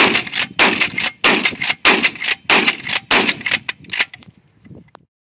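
Charles Daly 301 pump-action 12-gauge shotgun fired in a rapid string, about seven loud blasts roughly two-thirds of a second apart, each with a short echoing tail; the shooting stops about four seconds in.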